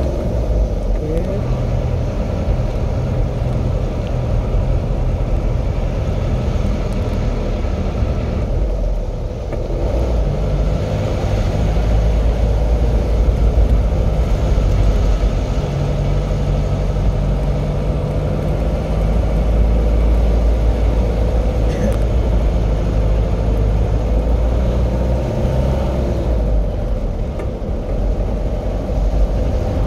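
A motor vehicle's engine and road noise: a steady low rumble that grows a little louder around the middle.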